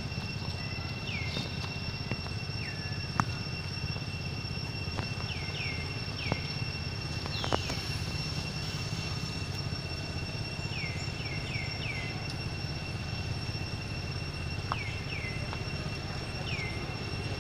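Outdoor ambience: a steady high-pitched insect drone over a low rumble, with short falling chirps in twos and threes and a few sharp clicks.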